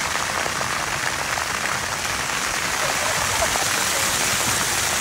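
Water fountain jets spraying and splashing steadily, a continuous rushing hiss.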